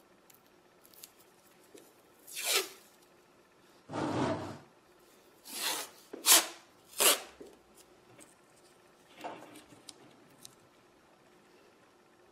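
Masking tape being pulled out and laid across a stretched canvas: a series of short rasping strips between about two and seven seconds in, with a fuller, duller rub around four seconds in and a softer rasp near nine seconds.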